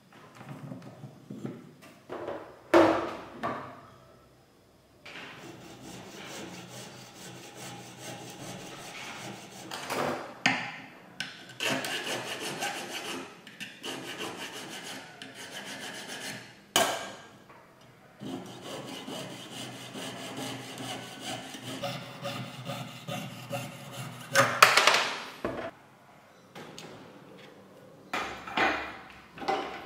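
Flat hand file scraping across a small silver block held in a wooden ring clamp, in long runs of quick back-and-forth strokes. A few loud knocks break up the filing.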